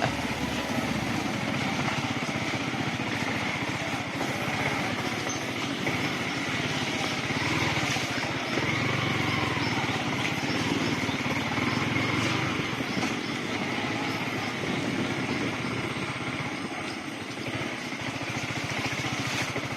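Motorcycle engine running steadily under way on a rough road.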